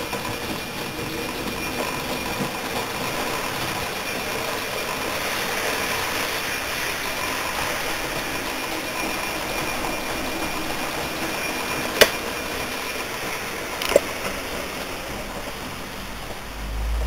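Model train running along the layout's track, passing through: a steady whir of motor and wheels with a thin whine, and two sharp clicks about twelve and fourteen seconds in.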